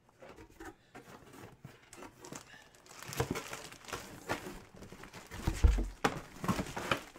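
Cardboard box handled and a jersey in a clear plastic bag pulled out, the plastic crinkling and rustling, faint at first and louder from about three seconds in, with a low thump about two-thirds of the way through.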